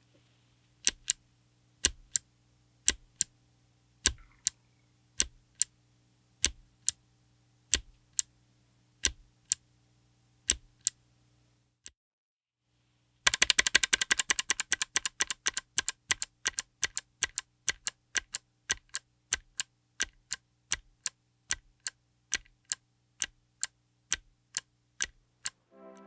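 A single Kailh BOX Night Firefly clicky mechanical keyboard switch pressed repeatedly. The first half is the bare switch, slow presses about once a second, each giving a sharp click and a second one on release. After a short pause, presses with a keycap on come faster, about two clicks a second, opening with a quick flurry.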